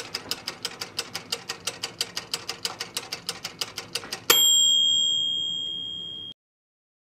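Intro sound effect of rapid, even mechanical ticking, about seven ticks a second, then a single bright bell ding about four seconds in that rings on for about two seconds and cuts off suddenly.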